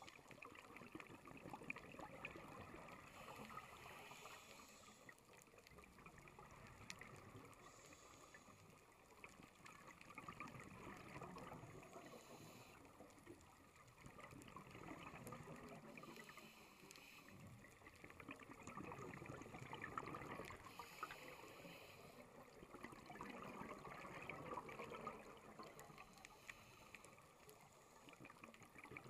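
Faint, muffled underwater noise over a coral reef: a low wash that swells and fades every few seconds, with small clicks scattered throughout.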